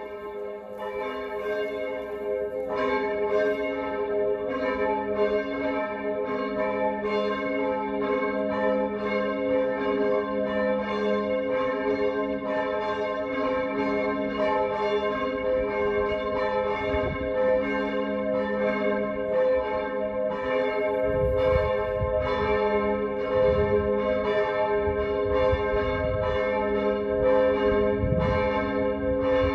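Church bells ringing in a full peal, several bells struck over and over. The peal fades in over the first few seconds as more bells join, and a low rumble joins about two-thirds of the way through.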